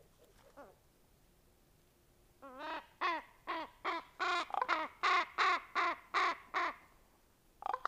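A crow-family bird calling: a run of about ten loud calls, each falling in pitch, two or three a second, starting about two and a half seconds in, with one more call near the end.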